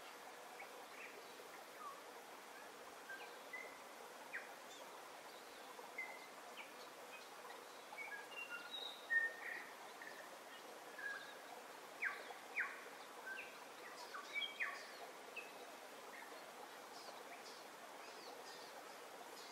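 Small birds chirping and whistling in short calls over a steady hiss, the calls busiest about halfway through.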